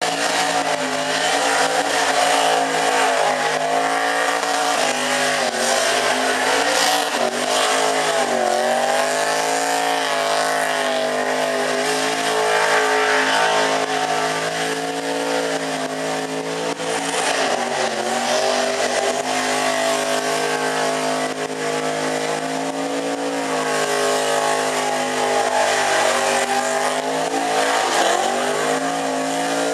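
Holden Commodore ute's V8 held at high revs through a burnout, the rear tyres spinning and squealing against the pad. The engine note sags and climbs back several times.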